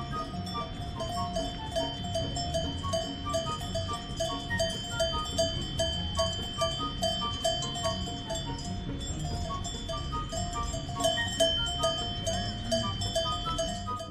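Cowbells on grazing cattle clinking in a quick, steady patter, several bells at different pitches, over a steady high-pitched drone.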